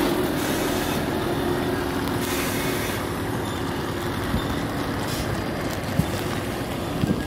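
Truck's diesel engine idling steadily, with two short knocks near the end.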